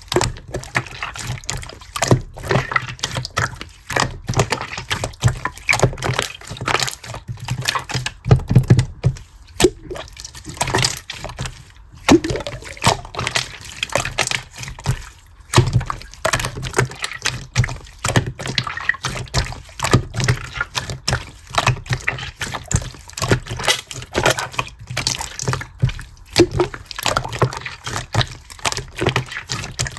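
Wet, sticky liquid sounds: dense, irregular clicking and crackling that runs on without a break.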